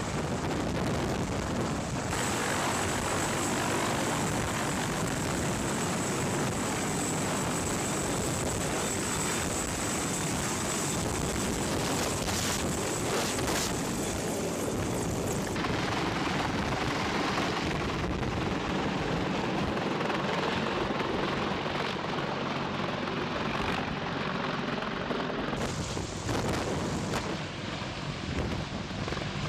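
Sikorsky CH-53 heavy-lift helicopter hovering close overhead: a loud, steady rush of rotor and engine noise with a high turbine whine, which drops away about halfway through.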